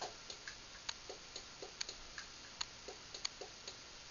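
Faint, light clicks and ticks at uneven intervals, several a second.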